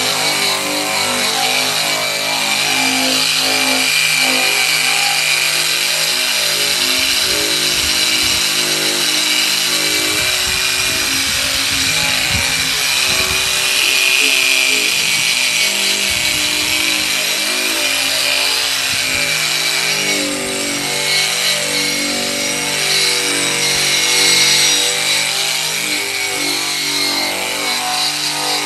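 Eastwood Contour SCT surface conditioning tool running, its spinning abrasive bristle drum scouring bare welded sheet steel with a steady high-pitched grinding whir. Background music plays underneath.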